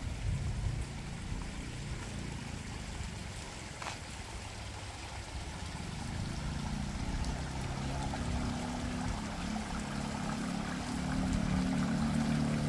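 Wind rumbling on the microphone with a steady rush of running water, which grows louder in the second half.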